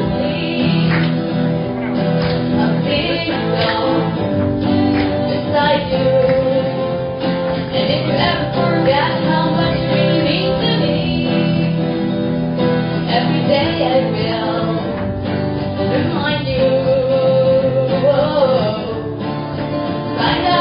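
A mixed group of men and women singing together, accompanied by two acoustic guitars.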